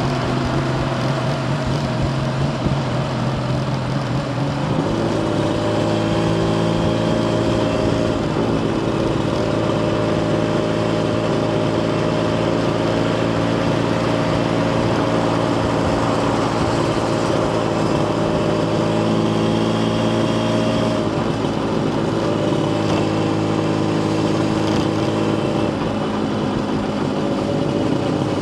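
Yamaha TZR250 1KT's two-stroke parallel-twin engine running, its pitch stepping up about five seconds in and then holding steady for a long stretch, with smaller shifts in pitch later on.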